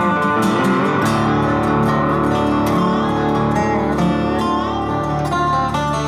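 Background music led by plucked guitar.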